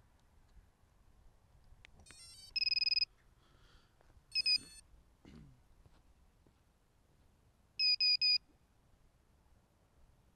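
High-pitched electronic beeps at one steady pitch: a quick run of tones followed by one longer beep about two seconds in, another short beep about a second and a half later, then three quick beeps near the end. The beeps come from the FPV quadcopter's electronics, its buzzer or status tones.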